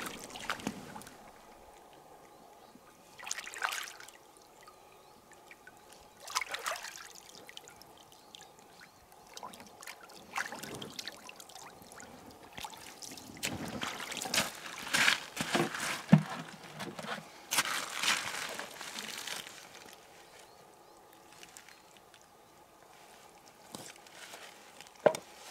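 Shallow river water splashing and sloshing in irregular bursts as a person wades in rubber boots and rinses a gutted grayling in it, busiest in the middle of the stretch.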